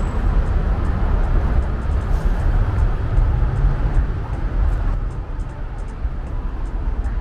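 Road traffic going by: a steady rumble of cars that eases a little about five seconds in.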